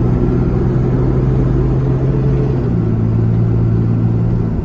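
Ram 3500's 6.7 L Cummins inline-six turbo-diesel running steadily with a constant engine drone, its pitch holding level.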